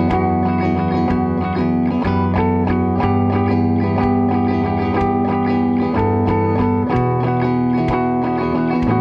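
Instrumental rock band recording: guitars ringing chords over a steady drum beat and a moving bass line, with no vocals.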